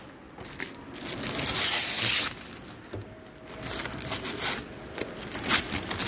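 Clear plastic protective film crinkling and rustling in irregular bursts as it is handled.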